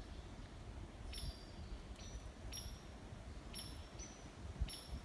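Short high-pitched insect chirps repeating about twice a second, over a low rumble of wind or handling noise.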